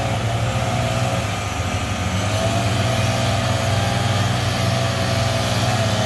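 Steady drone of small power-equipment engines, with a backpack leaf blower running as the worker blows down the lawn. A thin whine sits above the engine note and drifts slightly up and down in pitch.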